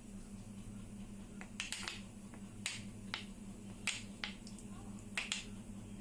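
Sharp, irregular clicks and ticks, about nine in all, mostly in the middle of the stretch, over a steady low hum.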